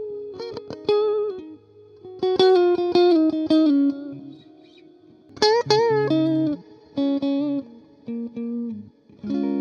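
Electric guitar played through a studio-style plate reverb with long trails and the mix turned up: a few short phrases of picked notes and chords, each ringing out and fading into the reverb tail between phrases.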